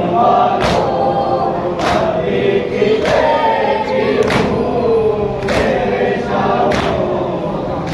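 Men's voices chanting a Shia noha lament together, over a crowd's hands striking their chests in matam. The strikes fall in unison as a steady beat about once a second.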